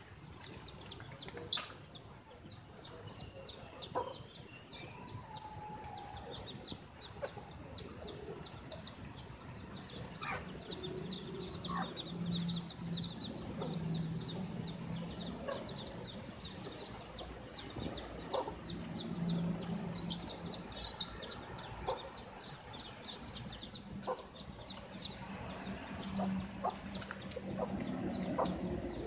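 A mother hen clucking low to her chicks, with a steady run of short, high peeps from the chicks.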